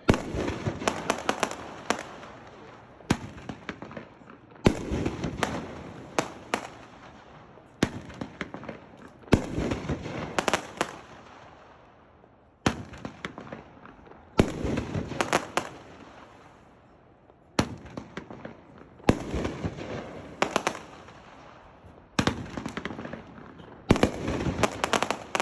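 Sky Bacon Nishiki 500-gram fireworks cake firing: about every second and a half a shell bursts in a quick cluster of sharp bangs and crackles that fade away, over and over.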